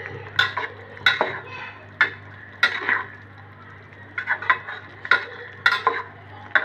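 Slotted spatula stirring thick prawn curry gravy in a frying pan, scraping and clacking against the pan about twice a second in an uneven rhythm, over a steady low hum.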